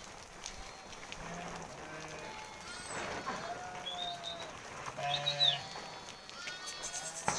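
Sheep and goats bleating, several separate calls from different animals over a few seconds, a couple of them high and wavering.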